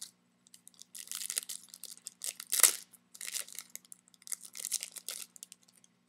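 A foil trading-card pack being torn open and its wrapper crinkled: a string of short rustling bursts, with one sharper, louder rip about two and a half seconds in.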